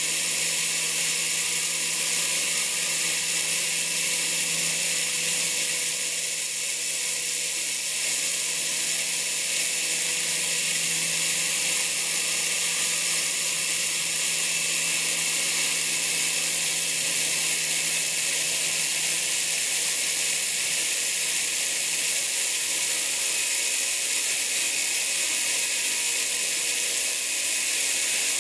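Homemade belt sander running steadily, its abrasive belt polishing a steel extrusion screw: an even high hiss over a steady motor hum.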